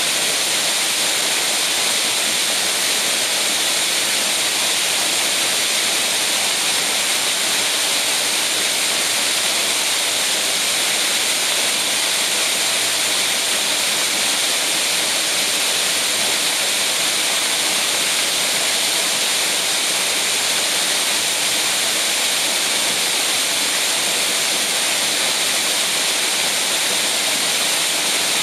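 Waterfall pouring down onto wet rock ledges: a steady rush of falling, splashing water with a strong hiss, unchanging throughout.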